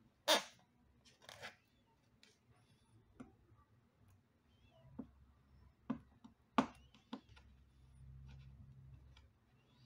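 Scattered clicks and short scrapes of hand work on an opened iMac's housing while old double-sided tape is cleaned off, the sharpest about half a second in and about six and a half seconds in.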